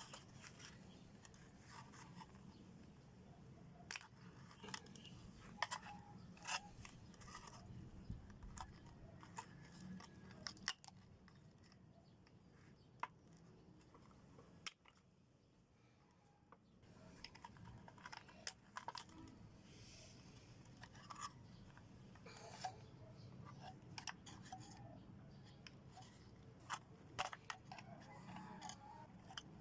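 Faint, scattered clicks and scrapes of hand tools and metal parts being handled while a microwave oven is taken apart for scrap, with a quieter pause about halfway through.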